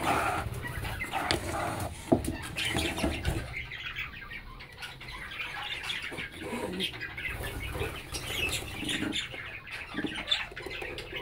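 Budgerigars in a colony chattering with many rapid short chirps, with wing flutters and small knocks in the first few seconds.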